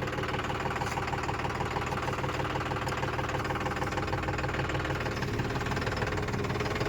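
Diesel engine of a tractor or backhoe idling steadily with a knocking clatter, its note shifting slightly about five seconds in.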